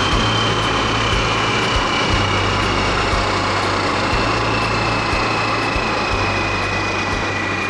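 Propeller motors of a radio-controlled An-24 model plane with a steady high whine that slowly falls in pitch, over a broad rushing noise. Wind rumbles on the microphone in gusts.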